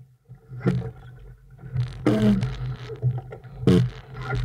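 Wind buffeting the microphone of a camera mounted on a sailing boat: irregular gusts, sudden loud rushes over a low rumble, dropping away between them.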